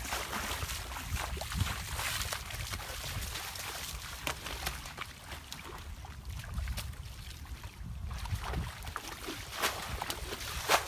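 Muddy water splashing and sloshing as a plastic bucket scoops and throws water out of a shallow pool, in many short irregular splashes over a steady low rumble. A louder splash comes near the end.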